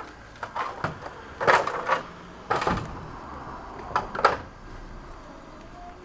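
Knocks and clatters of hard equipment being handled and shifted, about five sharp ones. The loudest come about one and a half and two and a half seconds in, the second with a heavier thud, and two more close together near four seconds.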